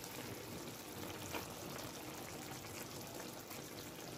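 Tomato sauce simmering steadily around kefta and eggs in a clay tagine, with a light tap about a second in.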